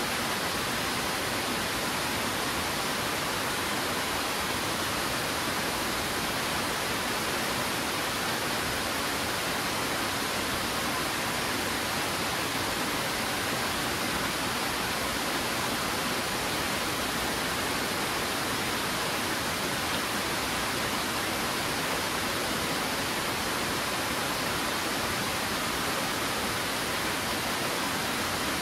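Twin Falls, a two-stream waterfall cascading down rock ledges: a steady, unchanging rush of falling water.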